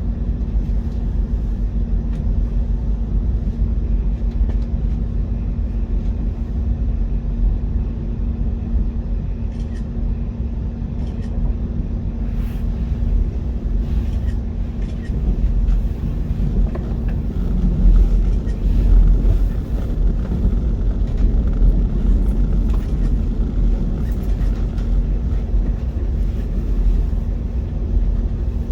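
Steady low rumble of a train in motion, with a constant hum and a few faint clicks and knocks.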